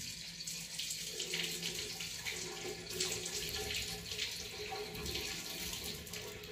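Running water: a steady splashing hiss.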